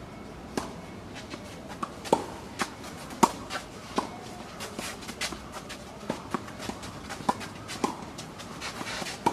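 Tennis rally: irregular sharp pops of tennis balls off racket strings and bouncing on a sand-filled artificial-grass court, the loudest about three seconds in, with footsteps shuffling on the court.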